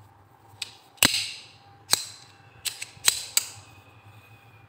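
A pair of Sanki water pump pliers being handled, giving a handful of sharp metallic clicks and clacks as the jaws and slip joint move, the loudest about a second in.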